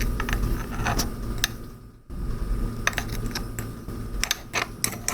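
A spoon clinking and tapping against a mug while flour is added: scattered light clicks and taps, with a brief pause about two seconds in.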